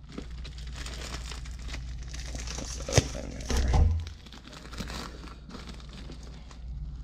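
Plastic poly mailer bag crinkling and rustling as it is handled and torn open, with a sharp snap about three seconds in and a low thump just after.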